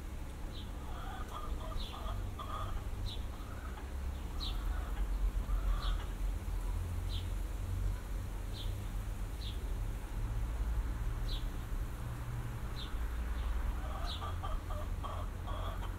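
Chickens clucking in bursts, with a small bird repeating a short high chirp every second or so, over a steady low rumble.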